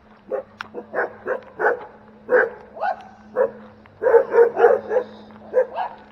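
A dog barking repeatedly: about a dozen short barks, some in quick runs of three or four.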